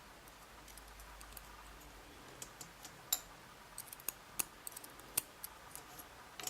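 Small metal clicks and taps from the sliders of a Vachette V DIS Plus dimple lock being set into their slots and moved to check the gates. About a dozen scattered clicks, starting about two seconds in.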